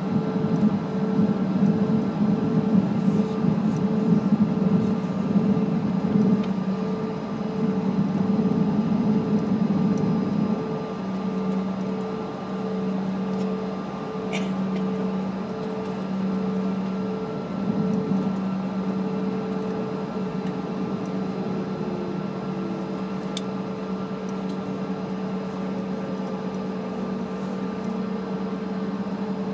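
CRJ-200's twin rear-mounted GE CF34 turbofans at taxi idle, heard from inside the cabin: a steady whine over a low hum that throbs a little more than once a second, easing slightly about ten seconds in.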